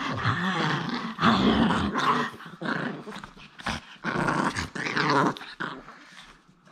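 Japanese Chin dog growling in drawn-out stretches while held up and squirming, loudest in the first two seconds and again about four seconds in, then fading toward the end.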